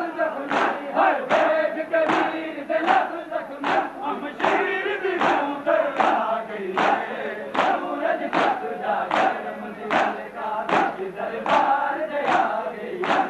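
A large crowd of Shia mourners chanting a Punjabi noha together, with sharp slaps of hands on bare chests (matam) landing in a steady beat about three times every two seconds.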